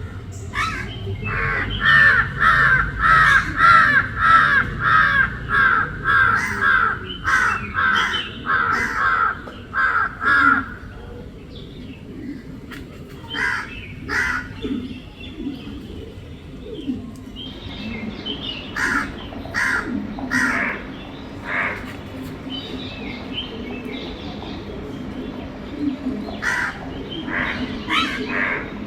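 Crows cawing: a long fast run of harsh caws, about two a second, for the first ten seconds, then scattered shorter bouts of caws, over a steady low background hum.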